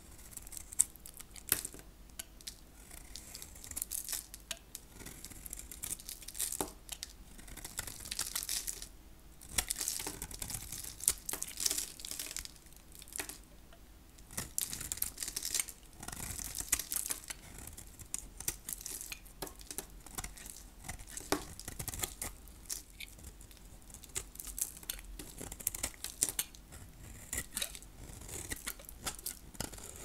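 A blade carving into dry, hard soap: repeated crunchy, crackling scraping strokes as curls and flakes break away.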